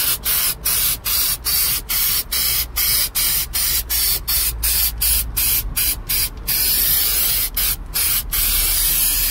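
Aerosol can of rust-treatment coating sprayed in short hissing bursts, about two or three a second, with one longer unbroken spray of about a second some six and a half seconds in.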